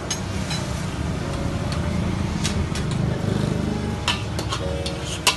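Metal spatula scraping and clinking against a wok and plates as fried rice is scooped out, with a sharp clank near the end, over a steady low rumble.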